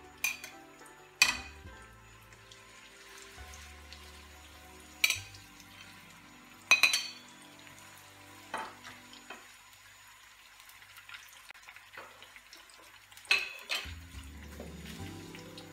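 Marinated kingfish pieces sizzling as they fry in oil in a nonstick pan, with a slotted metal spoon clinking sharply against the pan about seven times as more pieces go in and get stirred.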